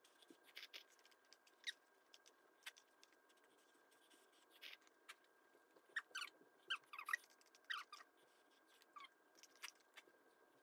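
Faint mouth sounds of someone eating cup noodles with chopsticks: soft clicks and a few short squeaky slurps that fall in pitch, mostly in the second half.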